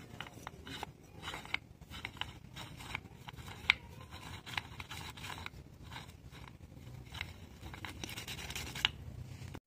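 Motorcycle drum-brake cam being twisted back and forth in its freshly oiled backing plate: irregular light metallic scrapes and clicks.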